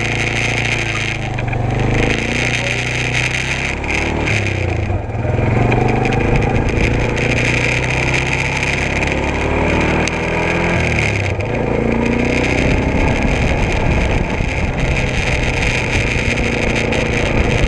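ATV engine running while riding, its pitch rising and falling repeatedly with the throttle.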